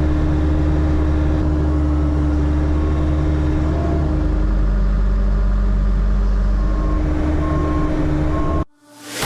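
A large engine running steadily with a low note, which shifts about four seconds in; the sound cuts off abruptly near the end.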